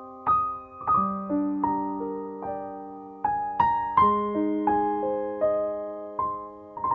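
Soft, slow piano music: single notes and chords struck a few at a time, each left to ring and fade.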